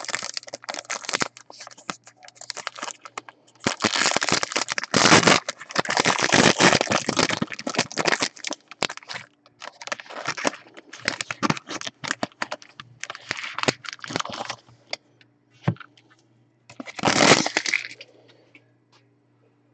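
Foil wrapper of a trading-card pack crinkling in the hands as it is torn open and the cards are slid out, in several long spells of crinkling and one short spell near the end.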